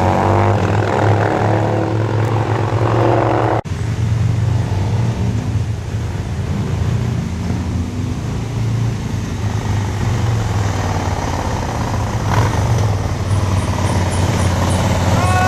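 Cruiser motorcycle engines under load on a hairpin climb: one revs up, rising in pitch, until an abrupt cut about three and a half seconds in; then a steady low engine drone as more cruisers and a touring motorcycle come up round the bend, with another revving up near the end.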